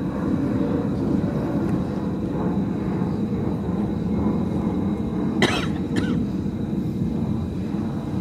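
Steady low outdoor rumble, broken about five and a half seconds in by a person's sudden cough, with a second, fainter one half a second later.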